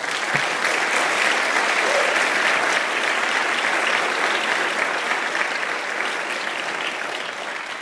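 Audience applause in a large auditorium: steady clapping from many hands that starts at once and slowly dies away toward the end.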